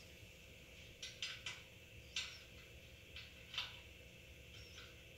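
Faint, scattered light clicks and clinks of small metal parts: nuts being fitted onto the ends of a barbecue cart's wheel axle.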